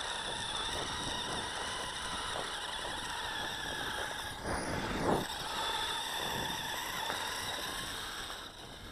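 A toy RC snowmobile's small electric motor whines steadily as its track runs over packed snow. It swells louder about halfway through as it passes close, then fades as it drives away near the end.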